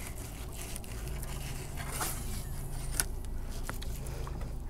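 Faint scraping and a few light clicks of a fillet knife working through a walleye on a wooden cutting board, over a low steady rumble.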